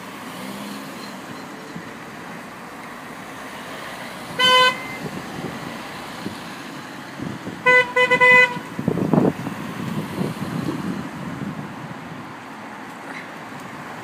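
Citroën DS3 car horns tooting as the convoy drives off: one toot about four seconds in, then three quick toots around eight seconds. Under it the small cars' engines and tyres run past on tarmac, with one car passing close just after the toots.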